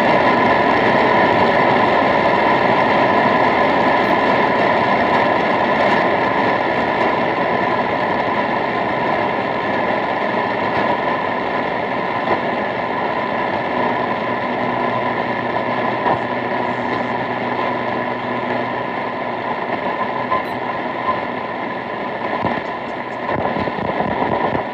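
Shortwave radio receiver's speaker hissing with static, tuned to a weak or empty frequency, with a thin steady whistle running through the noise.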